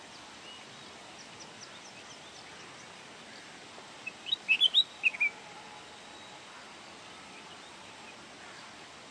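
A small finch singing over a steady faint hiss: a few thin high chirps, then about four seconds in a short loud burst of quick sweeping notes lasting just over a second.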